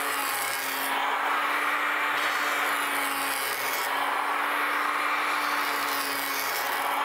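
Electric hand power planer running and cutting along a wooden paddle blade: a steady motor whine under the continuous hiss of the cutter head taking off shavings.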